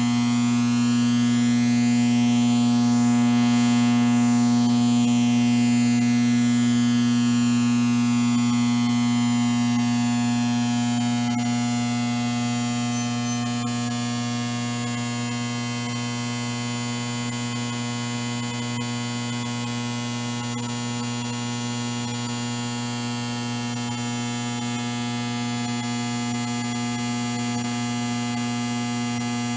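Steady electrical hum and buzz, a low mains-type drone with many higher overtones. It swells slightly in the first few seconds, then holds level.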